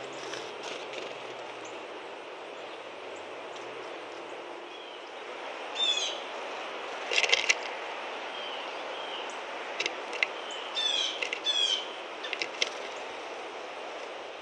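Wild songbirds calling: short clusters of quick, sharp high notes about six seconds in, again around seven seconds, and several more between ten and thirteen seconds, over a steady background of outdoor noise.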